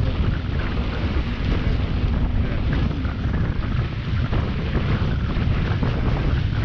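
Steady wind buffeting an action camera's microphone, over water rushing along the hull of a sailing yacht heeled under sail.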